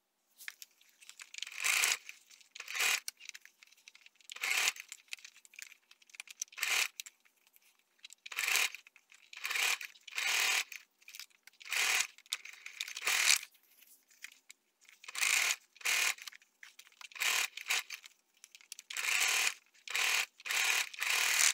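Electric sewing machine stitching in short bursts a second or two apart, stopping briefly between runs while the fabric is turned along a curved seam.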